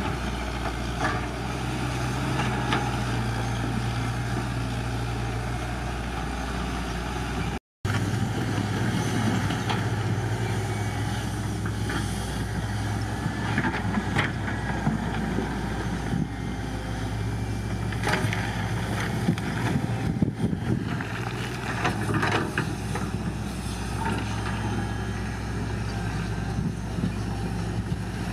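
CAT 312C excavator's diesel engine running steadily under work, with scattered knocks and clatters of rock. The sound drops out for a moment about eight seconds in.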